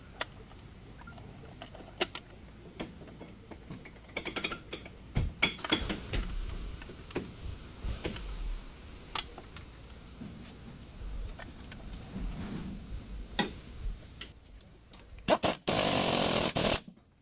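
Scattered clinks and knocks of tools on metal during front wheel bearing work on a GMC truck. Near the end comes a loud, steady noise lasting about a second and a half that stops abruptly.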